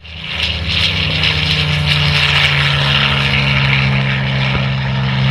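MiG-17PF's Klimov VK-1F turbojet running loud, a low drone with a strong hiss over it. The drone's pitch drops a little about halfway through.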